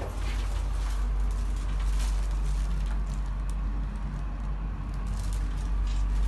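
Elevator car running: a steady low hum with a few faint clicks.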